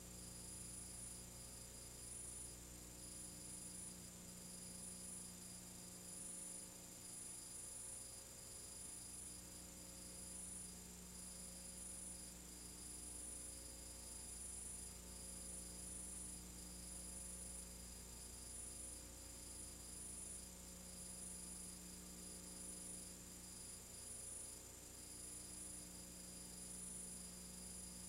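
Faint steady electrical mains hum with hiss and a thin high-pitched whine, the background noise of an old silent-film transfer. No sound of the etching itself is heard.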